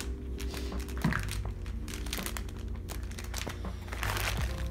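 Background music with a steady beat over the crinkling of clear plastic packaging bags being handled, with a sharper crackle about a second in.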